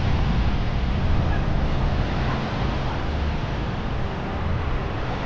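Wind buffeting the microphone, a steady low rumble over a continuous wash of outdoor noise.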